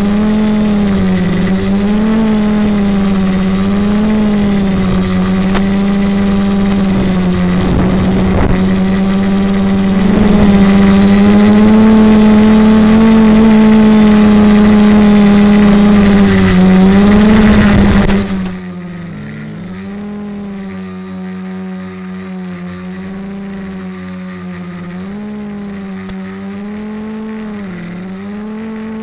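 Multirotor's electric motors and propellers humming at a steady pitch that wavers gently up and down as the throttle changes, over a rushing noise. About 18 seconds in, it drops to a quieter, cleaner hum.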